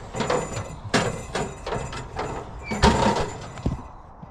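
Knocks, scrapes and rustling as a man climbs up out of a narrow escape hatch, his body and hands bumping against the hatch frame. A handful of separate bumps, the loudest about three seconds in.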